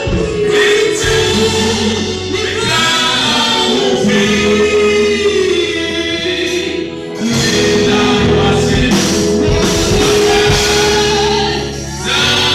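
Gospel music with a choir singing over a steady bass accompaniment.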